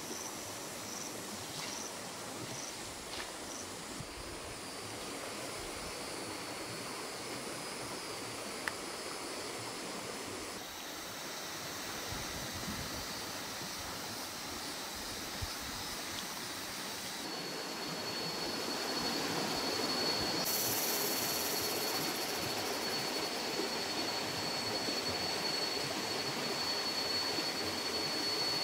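Steady rushing outdoor ambience with no distinct events. Its character changes abruptly a few times, and a steady high whine joins it about two-thirds of the way through.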